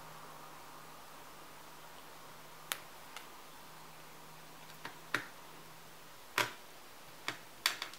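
Small screwdriver and tiny screws clicking and tapping against a MacBook Pro's metal chassis as the fan screws are driven back in: about eight sharp, irregular clicks, starting nearly three seconds in.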